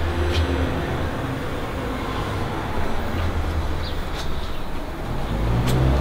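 Road traffic, a low steady rumble, with a few faint clicks.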